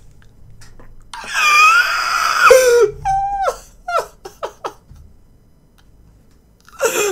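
A man laughing uncontrollably: a long, high-pitched squeal of laughter about a second in, then several short gasping bursts, and another burst near the end.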